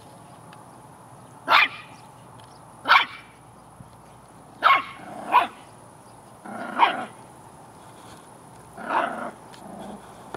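Puppy giving short, high-pitched barks, six of them spread over about ten seconds, two close together near the middle.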